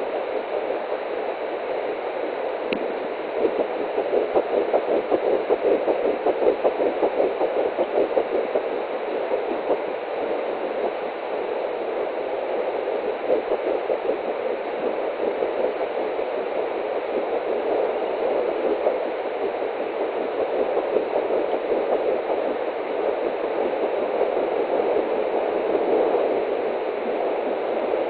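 Fetal heartbeat picked up by an Angelsounds home fetal doppler at 8 weeks 4 days: a fast, even pulsing over a steady hiss through the doppler's small speaker. The pulsing is strongest a few seconds in and continues more faintly after.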